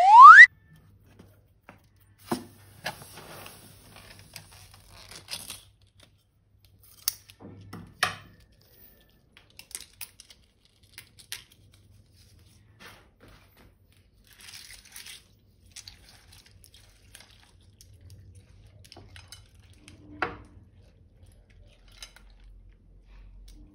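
Balloons and slime being handled: a short, loud rising squeak at the start, then scattered quiet crinkling, snipping, tearing and tapping.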